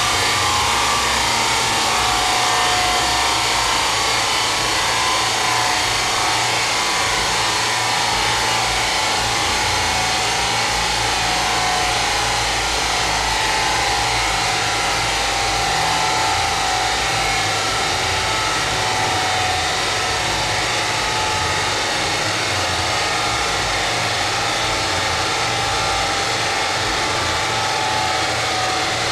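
Steady, even noise of a large dyno cooling fan blowing at the front of a car on a rolling road, with the car's engine idling underneath; no revving.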